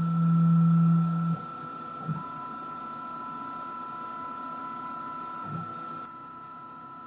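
Rownd desktop CNC lathe running with a steady high whine. A loud low motor hum stops suddenly after about a second and a half. A second, higher motor tone then runs from about two seconds to five and a half seconds in, while the tool carriage travels away from the aluminum workpiece.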